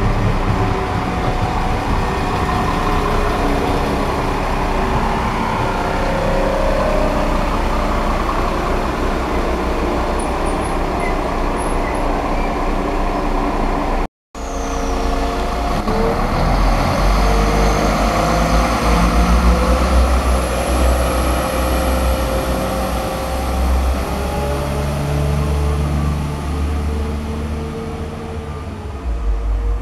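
A London Midland Class 350 electric multiple unit passing close by, a steady rush of wheel and running noise. After a sudden break, a London Midland Turbostar diesel multiple unit approaches with a deep steady engine drone.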